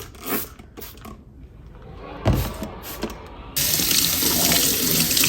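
A few light knocks and a thump, then a tap is turned on about three and a half seconds in and water runs steadily into a sink.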